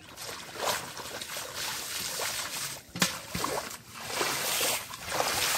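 Splashing and sloshing of shallow muddy water as bare feet and hands move through it, coming in uneven swells, with a sharp click about three seconds in.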